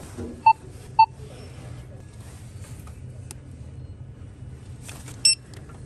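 Self-checkout terminal beeping: two short beeps about half a second apart as an item is scanned, then a single higher-pitched beep near the end, over a steady low store hum.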